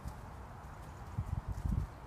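Pony's hoofbeats on grass turf: a few dull thuds in the second half.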